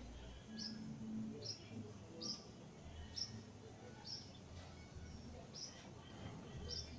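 Short, high chirp calls from a small unseen animal, repeated about once a second at an even pace, over a faint low background rumble.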